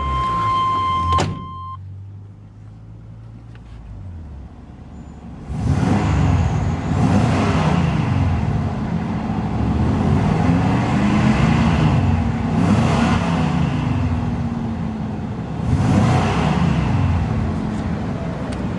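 The 1998 Chevrolet Silverado 3500's 7.4-litre (454) Vortec V8 idling, then revved up and let fall back repeatedly, about five or six times, from about five seconds in: an amazing hefty sound. A steady electronic warning tone sounds over the idle and stops about a second in.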